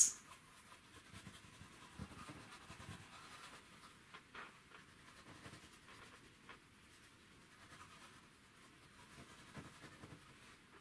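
Faint scratchy rubbing of a paintbrush's bristles stroking acrylic paint onto a stretched canvas, with a few soft ticks.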